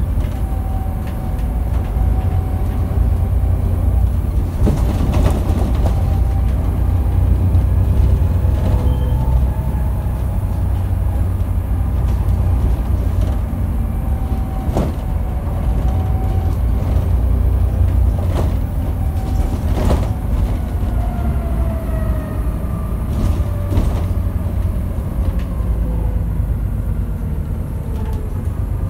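Volvo bus heard from inside the passenger saloon while it drives: a steady low engine rumble with thin drivetrain whines that slide up and down in pitch as the bus changes speed. Sharp knocks and rattles come from the body now and then.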